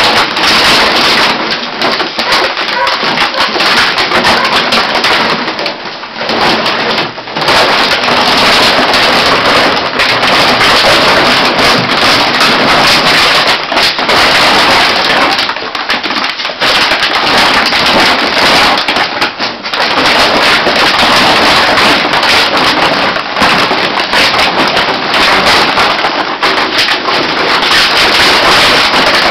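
A heap of empty plastic drink bottles crackling and crunching without pause as two dogs wrestle and scramble on top of it, with brief lulls about six and nineteen seconds in.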